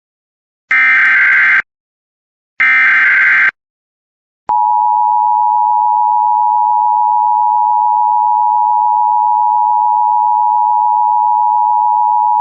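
Emergency Alert System signals: the last two of the three SAME header data bursts, each just under a second long and about a second apart. About a second later comes the steady EAS two-tone attention signal (853 and 960 Hz sounded together), held for about eight seconds. It announces an Immediate Evacuation alert.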